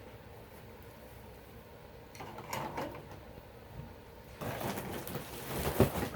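Rustling and handling noises from items being moved, in two spells, the second ending with a sharp knock near the end.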